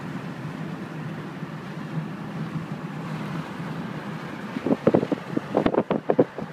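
Steady road and engine noise inside a moving Mazda car's cabin. In the last two seconds, irregular gusts of wind buffet in through the open side window.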